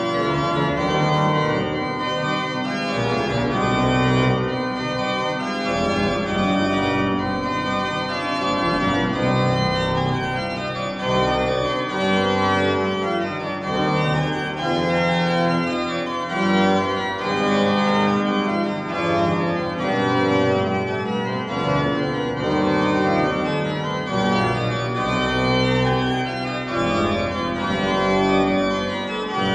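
Background music of sustained chords that change every second or two.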